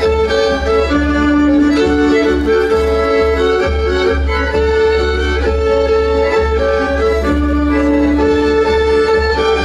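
Traditional folk band playing an instrumental passage between sung verses, a fiddle carrying the tune over long held lower notes.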